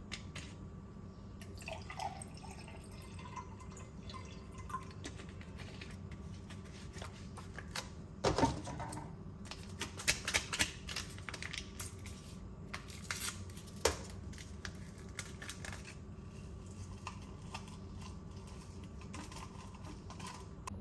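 A drink being made in a glass on a kitchen counter: liquid into the glass, with a few sharp clinks and knocks of glass and bottle being handled, the loudest about eight seconds in, over a steady low hum.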